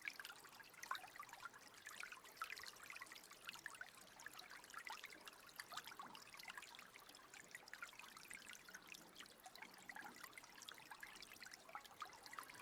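Faint trickling water running through a small channel, a steady patter of tiny splashes and drips.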